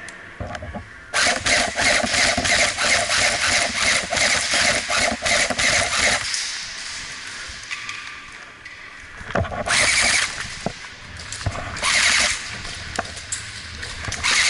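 Airsoft electric guns firing on full auto: a long burst of rapid clicking over the gearbox whir starting about a second in and lasting some five seconds, then shorter bursts later on.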